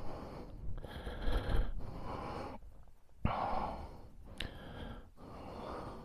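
A person breathing close to the microphone, several breaths each about a second long with short gaps between them, and a sharp click a little over three seconds in.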